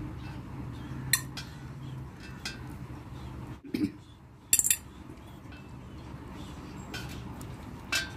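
Stainless-steel slotted skimmer clinking against a steel plate as soaked tamarind pulp is pressed in it by hand to free the seeds. A few sharp metal clicks, the loudest about four and a half seconds in, over a low steady hum.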